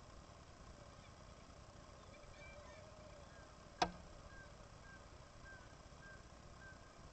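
Faint calls of a seabird colony, with short calls repeating about twice a second in the second half. One sharp click a little before the middle is the loudest sound.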